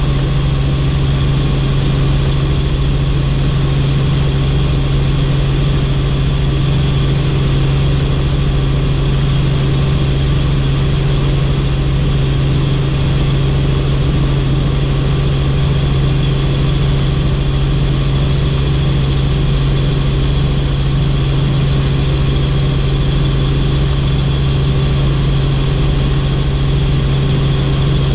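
Helicopter in steady cruising flight: a loud, unchanging drone of rotor and engine with a strong low hum and a steady rush of noise, no change in pitch or level.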